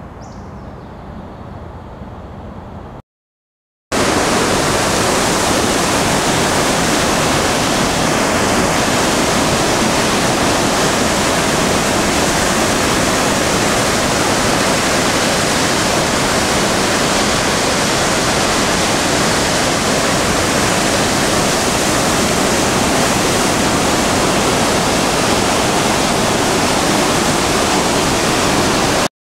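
Skeena River floodwater rushing and churning white around a concrete bridge pier: a loud, steady rush of water. It starts suddenly about four seconds in, after a few seconds of much quieter outdoor ambience.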